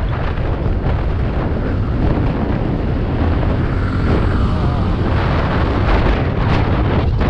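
Wind buffeting the microphone with steady road and engine noise from a scooter ridden at about 55–70 km/h.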